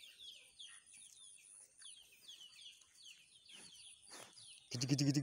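Rapid, high, falling cheeping calls of small birds keep on and off. Near the end a loud, low call with a steady pitch sets in close to the microphone.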